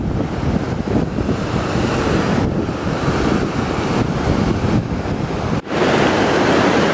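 Rushing of river rapids over rocks, mixed with wind buffeting the microphone. About five and a half seconds in the sound cuts briefly, then the water rush comes back louder and steadier.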